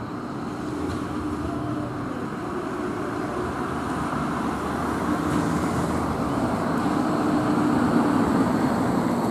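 Bombardier Flexity 2 tram approaching, its running noise and a steady low hum slowly growing louder as it nears.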